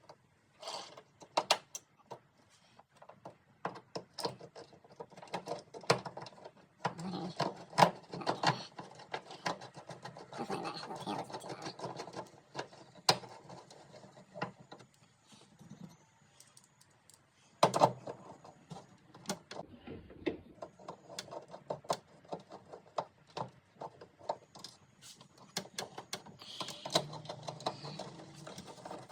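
A 2004 Pontiac GTO's trunk release actuator and cable being worked back into place in the trunk lid: irregular clicks, taps and short rattles of the hardware being handled, with a louder knock a little past halfway.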